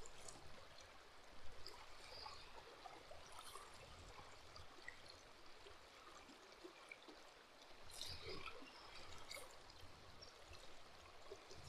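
Faint river current flowing and trickling over a shallow, stony bed, with a few soft ticks or small splashes, one about a second and a half in and a couple about eight to nine seconds in.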